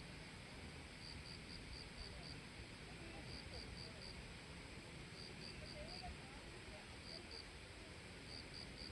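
Faint insect chirping: short high chirps in quick runs of three to five, repeating every second or so over a faint outdoor hush.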